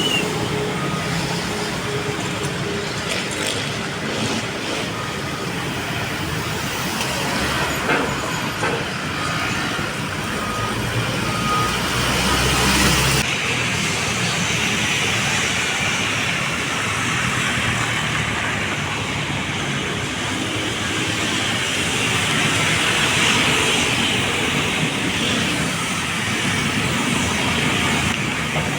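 Road traffic: vehicles passing on a city road, a steady wash of engine and tyre noise.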